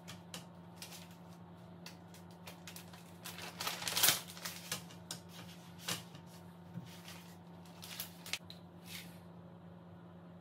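Light kitchen handling noises: scattered clicks, taps and plastic rustles as raw chicken pieces are moved with metal tongs, cut on a wooden cutting board and put into a plastic bag. The noises are loudest about four seconds in, over a low steady hum.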